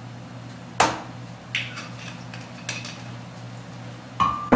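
Sharp clinks and knocks of bar tools and glassware: a metal jigger and a glass vermouth bottle striking the mixing glass and the wooden bar top. Four or five strikes, the loudest about a second in and a double knock with a short glassy ring near the end, as the bottle is set down.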